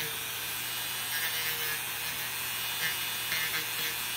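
Handheld rotary tool running with a steady motor whine while grinding down a fungus-damaged toenail, with short rasping scrapes as the bit bites into the nail.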